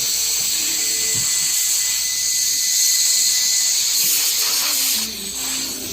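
Compressed-air blow gun hissing steadily as it forces Acraglas epoxy into a hairline crack in a wooden shotgun buttstock; the air drops off briefly about five seconds in, then resumes.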